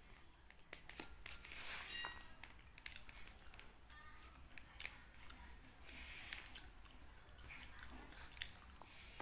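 Faint eating sounds: a metal spoon clicking and scraping in a paper bowl of rice and crispy smashed fried chicken, with chewing and crunching between the scoops.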